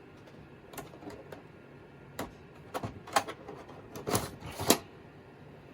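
Plastic clicks and knocks as a CD-ROM drive module is pulled and pushed back into the bay of a Compaq LTE 5000 docking station, a few scattered clicks and then a louder cluster of knocks near the end.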